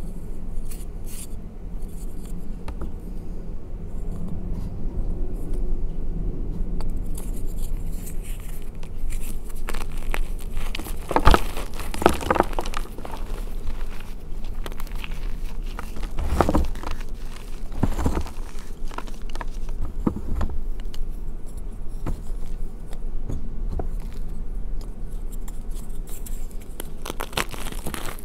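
Hands squeezing and crumbling reformed gym chalk blocks: a dense, steady crunching and crackling of chalk breaking into powder, with several louder sharp snaps around the middle.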